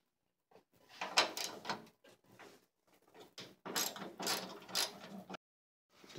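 Irregular rustling and clattering handling noise from someone working by hand inside a car's trunk, in short uneven patches.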